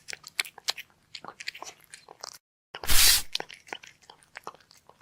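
Close-up eating sounds: crunching and chewing in quick irregular clicks, with a loud half-second burst of noise about three seconds in.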